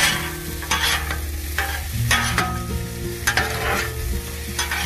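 Metal spatulas scraping across a hot steel Blackstone griddle and turning diced potatoes, about half a dozen scrapes over the steady sizzle of the potatoes frying in oil and butter.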